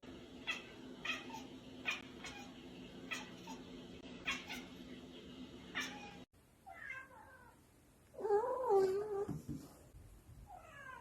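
Short sharp chirps over a steady low hum, then a cat meowing three times. The loudest is a long, wavering meow in the middle.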